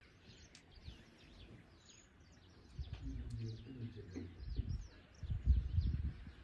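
Small birds chirping and twittering throughout, with low rumbling and thudding coming in about three seconds in, loudest a little after five seconds.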